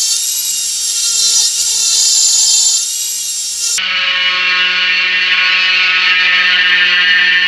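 Dremel 4000 rotary tool running at high speed through its flex shaft, a tapered carving burr grinding into wood: a steady, high-pitched whine. About four seconds in, the whine changes abruptly to a duller one.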